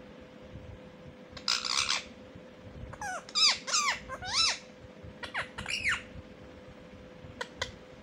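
Rose-ringed parakeets calling: one harsh squawk about a second and a half in, then a quick run of short chirping squawks that bend up and down in pitch, and two short sharp calls near the end. A faint steady hum runs underneath.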